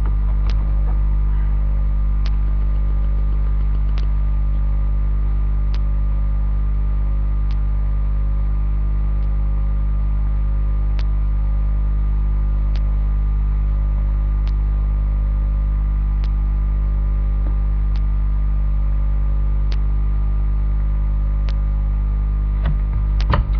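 Steady electrical mains hum in the recording, loud and unchanging, with a faint click about every second and three quarters.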